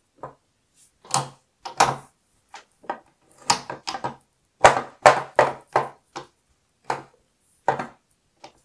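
Glass nail polish bottles being picked up and set down in a clear acrylic organiser: an irregular string of short clacks and knocks as the bottles meet the plastic shelf and each other.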